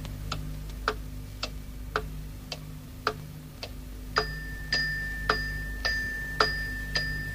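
Radio signature tune for the evening children's story: clock-like ticking, a little under two ticks a second, with a steady high tone joining about four seconds in.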